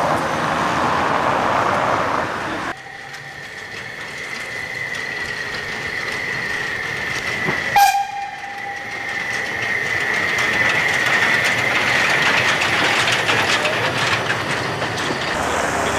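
Saxon IV K narrow-gauge steam locomotive 99 1584-4 running past with its train. A high, thin, steady squeal carries through most of the passage, a brief sharp sound comes about eight seconds in, and the carriage wheels clatter over the rail joints more loudly near the end as the coaches go by.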